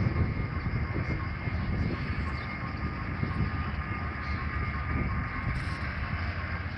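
Steady low rumble of road traffic and engines, with no clear single event standing out.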